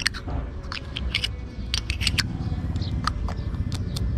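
Irregular small clicks and light rattles of plastic and metal parts being handled and pressed together as a cover is fitted onto a motorcycle's clutch lever mount, over a low steady rumble.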